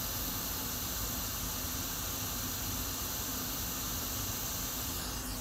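Hot air rework station blowing a steady hiss of hot air over the board while the solder balls under the integrated BGA RAM chips are being reflowed.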